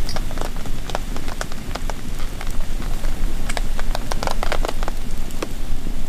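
Wood campfire crackling, with sharp irregular pops that come thickest about three and a half to four and a half seconds in, over a steady low rumble of the flames.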